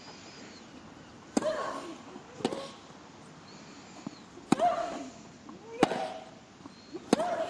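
Tennis rally: five racket strikes on the ball about a second or two apart, each hit accompanied by a short vocal grunt from the player.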